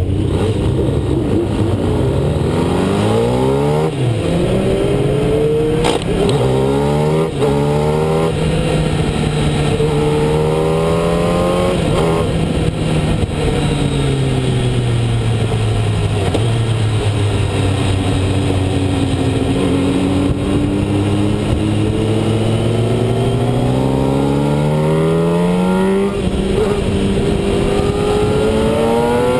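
Kawasaki ZX-10R sportbike's inline-four engine under hard acceleration, its pitch climbing and dropping back at each upshift, several times in the first dozen seconds. The pitch then sinks slowly for several seconds before climbing through the gears again, with another shift near the end.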